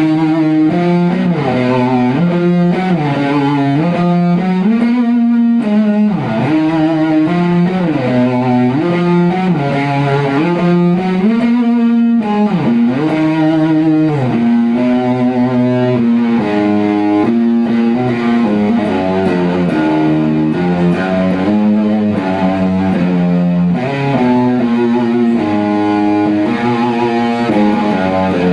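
Electric guitar played through distortion and effects, holding sustained chords that change every second or two.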